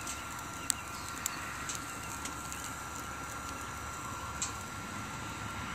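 BioLite CampStove burning sticks hard with its fan running: a steady rushing with a thin steady whine, broken by a few sharp crackles and pops from the burning wood.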